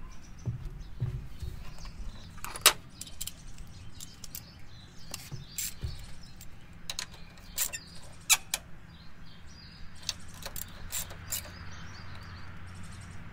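Scattered sharp metallic clicks and clinks of a quarter-inch drive ratchet and 10 mm socket being fitted together and used to tighten the voltage regulator's bolts, over a faint low hum. Birds chirp faintly in the background.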